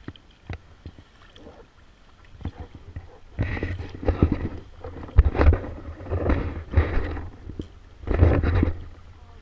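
Kayak paddling close to the microphone: a series of loud splashes and knocks, about one a second, starting about three seconds in after a quieter stretch with a few light taps.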